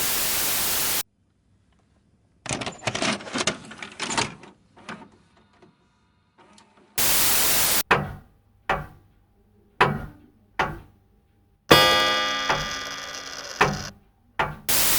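Sound effects of a staged building self-destruct on a recording: short bursts of static and a stretch of crackling bangs. Then four sharp bangs and a louder crash with a ringing tail that dies away slowly, followed by another burst of static.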